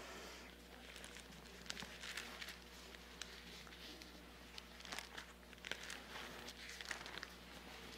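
Faint rustling and light ticks of Bible pages being leafed through, over a low steady electrical hum.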